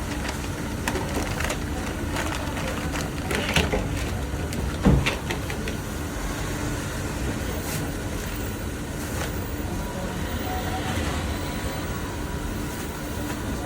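Steady low background rumble with a faint steady hum over the first five seconds, broken by a few short knocks, the loudest about five seconds in.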